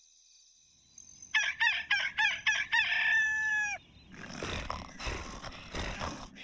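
Rooster crowing, a cartoon daybreak cue: a run of short notes ending in a long held note that falls away, starting about a second in. A breathy rasping noise follows about four seconds in.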